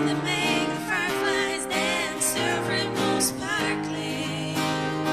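Background music with acoustic guitar.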